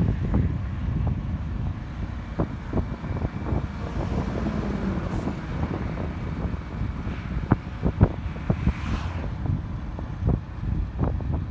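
Wind buffeting the phone's microphone on a moving motorcycle, a dense low rumble with irregular gusty thumps, over the motorcycle's engine and road noise. A brief whoosh rises around nine seconds in.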